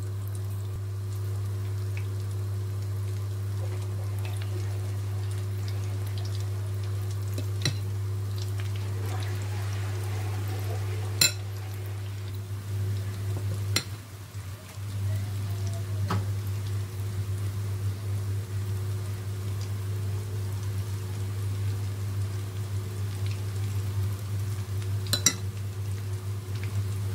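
Pakora batter frying in hot oil in a pan, the oil sizzling steadily, over a steady low hum, with a few sharp clicks scattered through.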